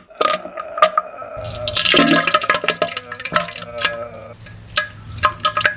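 Wet spluttering and splashing noises broken by many small clicks and pops, made as diarrhea sounds.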